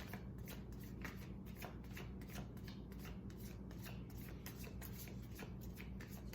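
A deck of tarot cards being shuffled by hand: a soft, continuous run of small, irregular card clicks and slaps, several a second.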